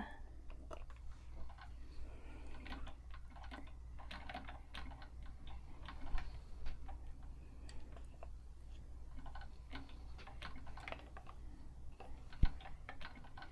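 Scattered light clicks and ticks of a Singer 223 sewing machine's mechanism being handled and worked while its parts are oiled, with one sharper click near the end.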